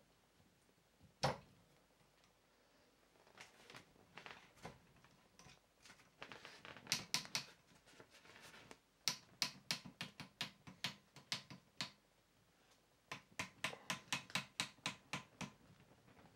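A sharp knock about a second in, then several runs of quick clicks, about four or five a second, from a softbox being fitted onto the plastic swivel bracket of a light stand.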